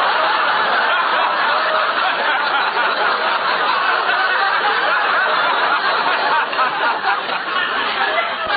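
Studio audience laughing long and hard at a punchline on an old, narrow-band radio broadcast recording. The laugh holds steady, then starts to break up and die down over the last couple of seconds.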